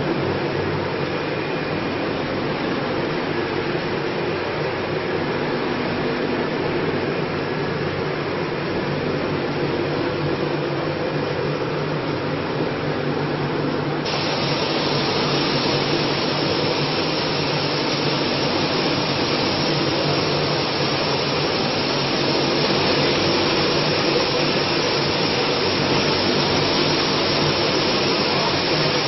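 Machinery of a popcorn production line running: a steady whirring hiss over a low motor hum with several steady tones. About halfway through the hiss suddenly gets brighter and louder and stays that way.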